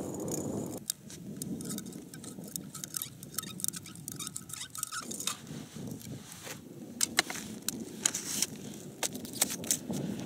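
Handling noise of ice-fishing gear at the hole: irregular light clicks, clinks and scrapes from a scoop working slush in the hole and a metal feeder tube being handled, growing busier in the second half.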